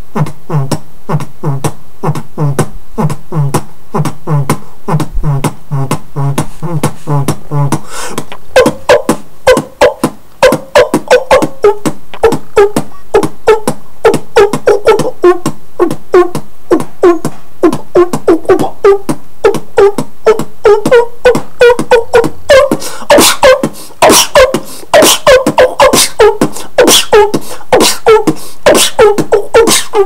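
Human beatboxing: a fast, even rhythm of mouth-made clicks and kicks over a low pulsing bass tone. About eight seconds in the pattern changes to a higher, wobbling voiced line with louder, sharper hits, and it grows brighter near the end.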